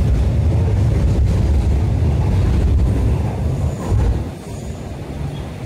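MTR Kwun Tong Line train running along elevated track, heard from on board: a steady low rumble of wheels on rail that eases off about four seconds in.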